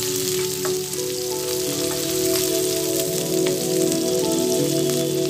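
Sliced onions sizzling steadily as they fry in hot mustard oil in a kadai, stirred with a wooden spatula, with a few light clicks of the spatula against the pan. Soft background music with held notes plays under the frying.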